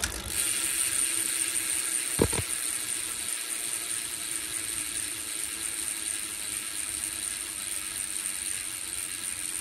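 Alienation Venus planetary-clutch cassette freecoaster BMX rear hub spinning freely, a steady whir with a high hiss that eases off slowly. A single sharp knock about two seconds in.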